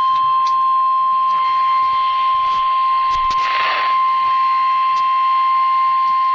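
NOAA Weather Radio's 1050 Hz warning alarm tone: a single loud, unbroken tone from the weather radio. It signals that a warning broadcast follows, here a flash flood warning.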